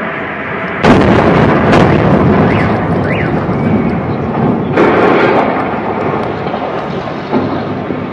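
Gas station explosion: a sudden, very loud blast about a second in, followed by a long rolling rumble with further sharp bangs near two and five seconds.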